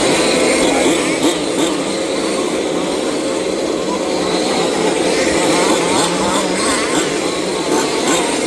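Several 1/5-scale two-stroke petrol off-road RC cars racing together. Their engines rev up and down, many pitches rising and falling over one another.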